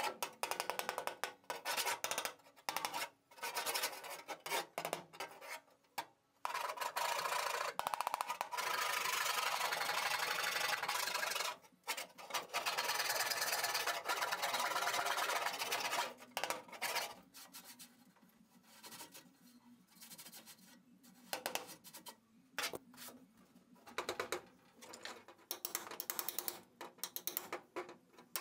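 Screwdriver scraping and jabbing at a rusted steel car floor pan: a steady harsh rasp for much of the first half, then scattered shorter scrapes and taps. The metal is being probed for rot, to find where it is still solid and thick enough to weld in a new piece.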